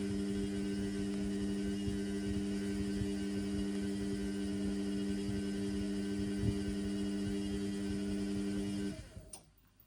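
Indesit washing machine's drum motor humming steadily as it turns the drum during the wash, then stopping abruptly about nine seconds in.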